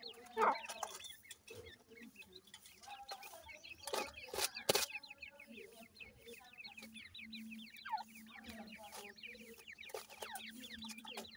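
Teetar (francolin) chicks peeping continuously in quick, high, falling notes, with a hen's low clucking beneath. A few sharp clicks come about four to five seconds in.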